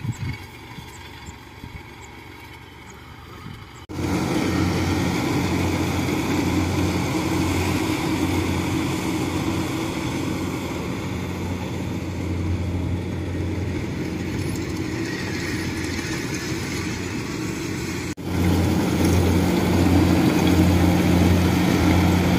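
Engines of a tracked rice-hauling cart and a rice combine harvester running steadily at work, a loud low hum. Before that, for the first few seconds, there is a quieter hum with a few knocks.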